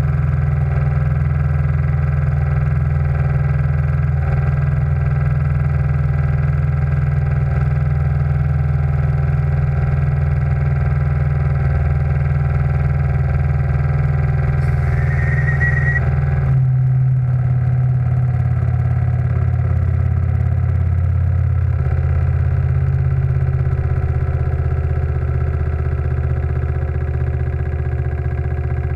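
Steam launch engine and boiler plant running steadily with a continuous low hum. About halfway through there is a brief hiss, and right after it the running note shifts.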